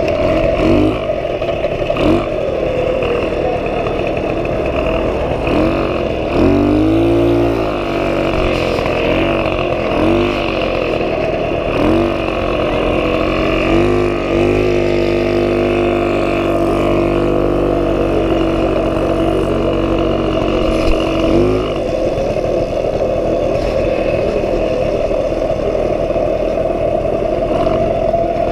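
1977 Puch Pinto moped's 49cc two-stroke engine running under way, rising and falling in pitch a few times as the throttle changes, then holding one steady pitch for several seconds before dropping off about three quarters of the way through.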